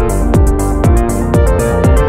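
Electronic dance music with a steady kick drum beating about twice a second under sustained synth chords.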